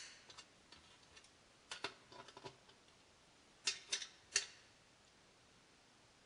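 Faint metallic clicks of a wrench and screwdriver on a small steel nut and bolt as the nut is tightened. They come as scattered single clicks in the first second, then two short clusters of three or four clicks, and stop in the last two seconds.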